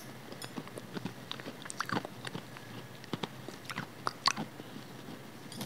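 A person chewing food with the mouth closed: irregular soft wet clicks and crunches, the sharpest about four seconds in.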